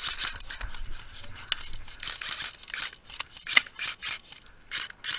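Close rustling and scraping of clothing, gear and dry grass as an airsoft player moves, broken by irregular small clicks of rifle handling, with one sharp click about three and a half seconds in.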